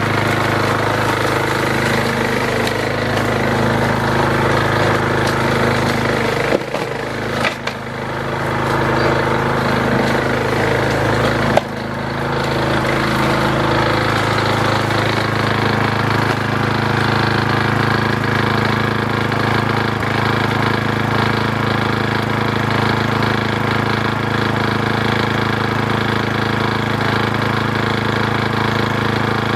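Small single-cylinder push-mower engine running steadily just after a hard cold start on the primer. Its sound dips briefly about seven seconds in, and a sharp click comes at about twelve seconds.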